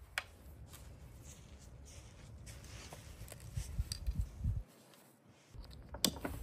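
Nylon harness webbing rustling and sliding through its plastic adjusters as the neck strap is adjusted by hand, under a low rumble. A plastic buckle clicks shut about six seconds in.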